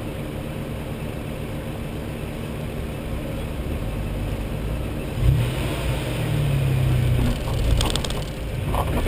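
Off-road four-wheel-drive's engine running low, then revving harder from about five seconds in as the vehicle starts crawling up a rocky track, with a few sharp knocks near the end.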